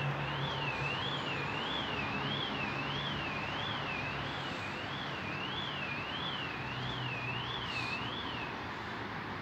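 An electronic alarm tone warbling evenly up and down, about three rises and falls every two seconds, that stops shortly before the end, over a steady low engine hum and traffic noise.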